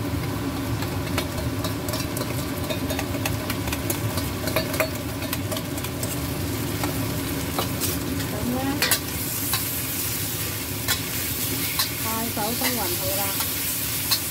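Prawns sizzling in a hot stainless-steel wok as a ketchup and balsamic vinegar sauce hits the oil, with a metal spatula clacking and scraping against the wok as they are stir-fried.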